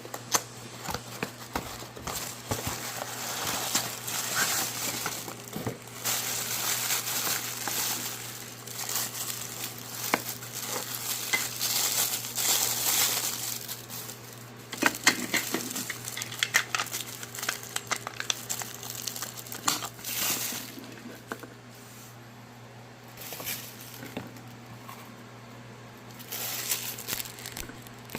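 Toy packaging crinkling and rustling as it is handled and opened, in uneven bursts with scattered sharp clicks. Busiest through the first half, quieter after about twenty seconds.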